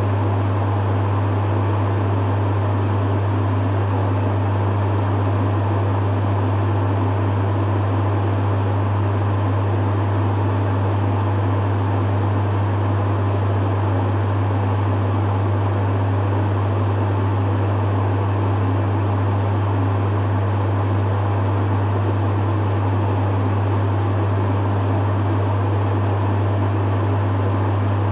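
Dehumidifier running steadily: a strong, even low hum under a constant fan whoosh, with no change in pitch or level.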